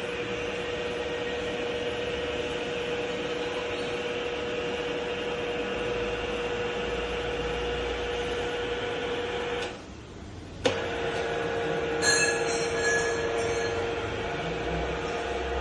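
Batliboi radial drilling machine running with a steady mechanical hum and a constant tone. About ten seconds in the sound drops away for a second and returns with a sharp click, and a short high squeal follows a couple of seconds later.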